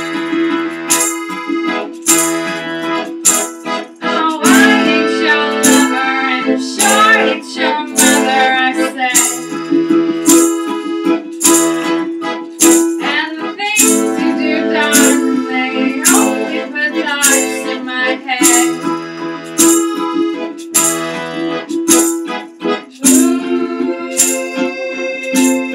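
Live acoustic folk music: an accordion holds sustained chords over a steady beat, while a wavering melody line bends up and down above it about four seconds in and again midway.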